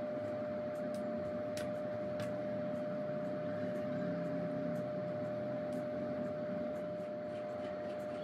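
Steady room hum: one constant mid-pitched tone over an even hiss, with a few faint clicks.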